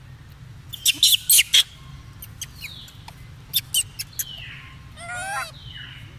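High-pitched animal squeaks and chirps, loudest in a quick cluster about a second in, followed by several falling whistle-like calls and a short wavering call about five seconds in.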